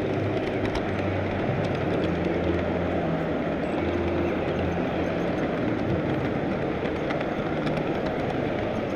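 Large-scale model train running along the track, heard from on board one of its cars: a steady rolling rumble and rattle of the wheels and cars, with a faint low hum.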